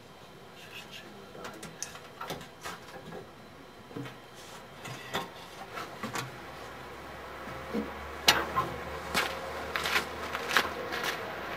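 Irregular wooden knocks and clatter as planks of firewood are handled and fed into a steam locomotive's firebox while it is being fired up, getting louder and busier in the second half. A low steady hum comes in about halfway through.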